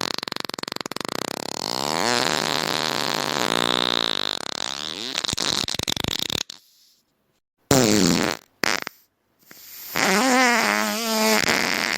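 Fart sound effects: a long fart with a wavering, rattling pitch lasting about six seconds, then a pause, two short blasts about eight seconds in, and another long fart with a wobbling pitch starting about ten seconds in.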